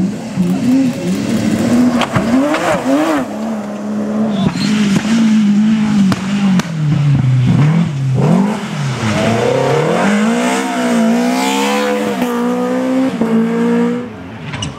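Rally car engine revving hard, its pitch climbing and dropping again and again through gear changes and lifts, then getting quieter near the end.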